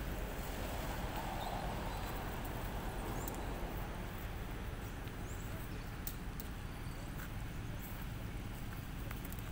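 Steady outdoor background noise with a low rumble, broken by a few faint sharp ticks.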